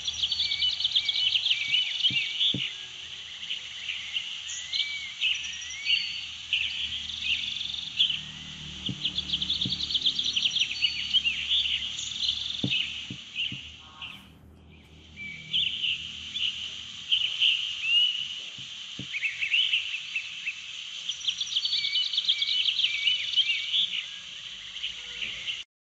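Birds chirping and twittering, many quick overlapping calls with short rising and falling sweeps; the chorus fades out briefly about halfway through, then comes back.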